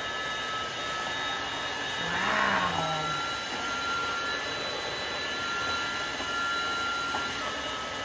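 Osotek H200 cordless wet-dry floor vacuum running steadily in auto mode, a motor whine over suction noise as it scrubs and sucks up a wet mess on tile. Its pitch steps up slightly about three seconds in and drops back near the end: auto mode adjusting its power to the dirt it senses.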